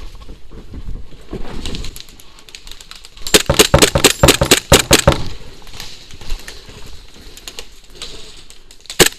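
Airsoft pistol fired rapidly: about a dozen sharp shots in under two seconds, with another quick string of shots starting near the end. Before them, rustling footsteps through undergrowth.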